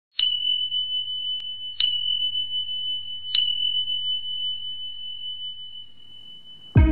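A high, bell-like ding struck three times about a second and a half apart, ringing on as one steady tone that slowly fades; it is an edited-in intro sound effect, with music cutting in at the very end.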